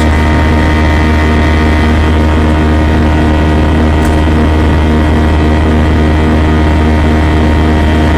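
Airbus A320 jet engines heard from inside the passenger cabin: a loud, steady drone with a deep hum and several steady whining tones.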